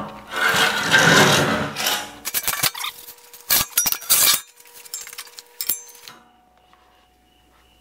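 Steel square tubing scraped and dragged across a steel welding table, followed by a run of sharp metal clanks and knocks as it is set in place. It ends about six seconds in with a few short crackles from a weld being struck.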